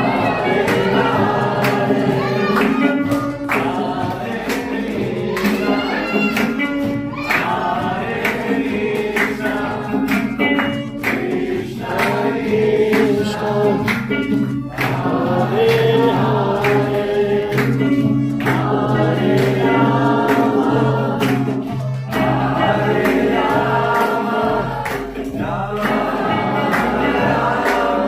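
A mixed group of men and women singing a devotional kirtan chant together, accompanied by strummed acoustic guitar and hand clapping.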